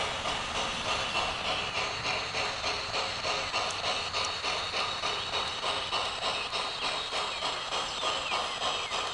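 G-scale model freight cars rolling past on the track, their wheels clicking in a steady rhythm of a few clicks a second at the rail joints, over a steady hiss.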